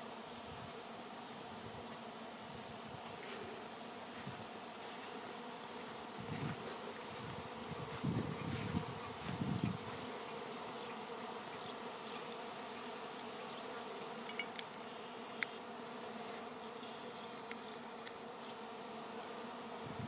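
A swarm of honey bees in flight, settling into a cluster on a branch: a steady, dense hum of many bees. A few brief low rumbles break through between about six and ten seconds in.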